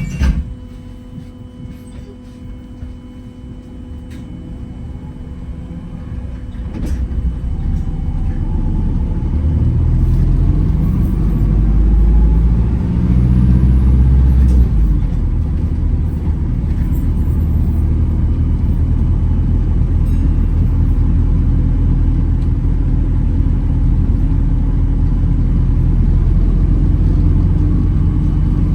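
Wright Gemini 2 hybrid double-decker bus heard from on board, pulling away: a sharp knock right at the start, then the engine and drive rumble swelling over the first dozen seconds as the bus speeds up, and running steadily after that.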